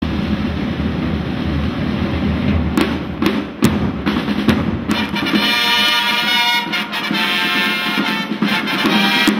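A flag-wavers' band of drums and trumpets playing. Drums roll with a few sharp accented strikes. About five seconds in, the line of trumpets comes in on a held chord over the drumming.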